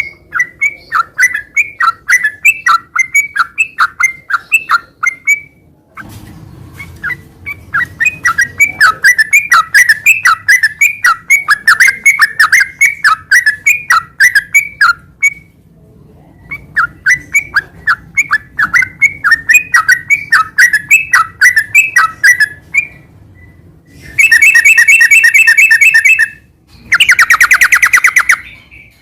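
Yellow-vented bulbul singing a fast, unbroken run of sharp chirps, about four a second, pausing briefly twice. Near the end come two loud, harsh buzzing trills of about two seconds each.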